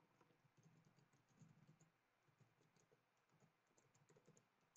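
Faint typing on a computer keyboard: a quick, uneven run of soft key clicks.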